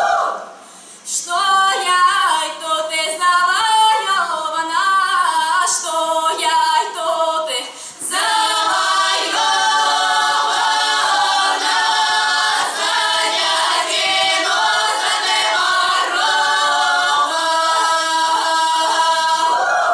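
A women's folk-song ensemble singing a cappella in several-part harmony. After a short break about a second in, they sing a phrase with sliding pitches. From about eight seconds in they move into long held chords, and the last one stops abruptly.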